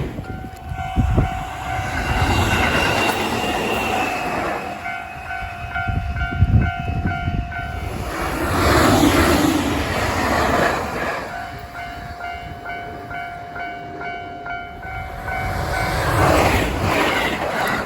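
Japanese railway level-crossing warning bell ringing in a rapid, repeating pattern while a train rushes through at speed. Near the middle the bell is briefly drowned out by the train's noise, then it rings on.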